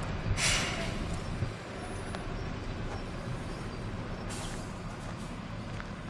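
Diesel engines of Mercedes-Benz fire engines running as the trucks drive slowly in a convoy, with short bursts of hiss about half a second in and again about four seconds in.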